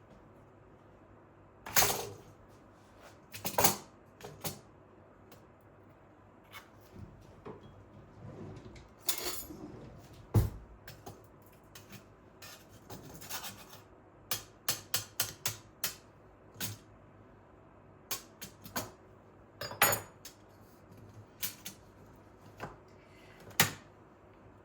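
Dishes and cutlery being handled: scattered sharp clinks and knocks of crockery and utensils being set down and moved, with a quick run of small clicks partway through.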